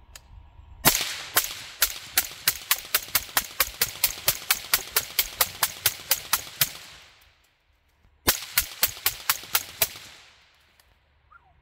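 Suppressed AR-15-style rifle with a Rex Silentium MGX suppressor firing rapid semi-automatic shots, about four a second. A long string of around twenty shots is followed by a pause of about a second and a half and a short string of about seven more.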